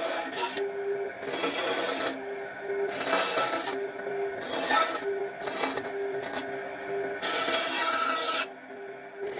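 Wood being worked by hand with an abrasive tool, in repeated scraping, rasping strokes about once a second with short pauses between.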